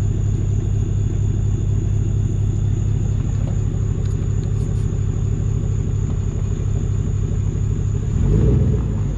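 Pickup truck's engine and true dual exhaust running with a steady low rumble, with a short rev near the end that rises and falls back.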